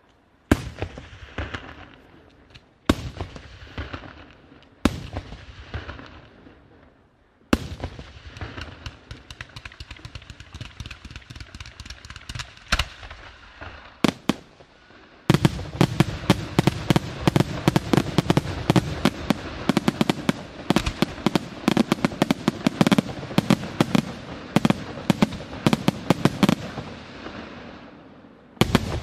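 Aerial fireworks display: four single shell bursts a couple of seconds apart, each with a trailing rumble, then a spell of scattered crackling. About halfway through, a dense, rapid barrage of bangs begins and runs until it breaks off briefly near the end.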